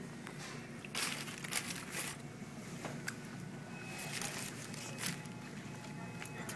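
Paper burger wrapper crinkling and rustling in short bursts as a fast-food burger is handled and eaten, the loudest about a second in and again around two seconds.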